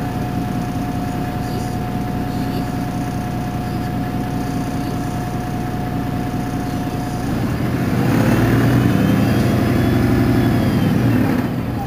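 MAN NL223 city bus's diesel engine idling steadily with a thin steady whine. About two-thirds of the way through, a louder engine sound swells, rising and then falling in pitch, and dies away after about four seconds.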